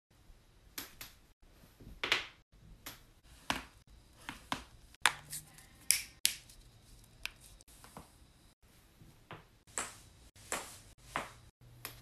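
A person cracking her own joints: a string of sharp cracks and pops, about a dozen and a half, spaced irregularly and sometimes in pairs, with brief dead-silent breaks between takes. About halfway through, the pops come from knuckles and wrist being pressed.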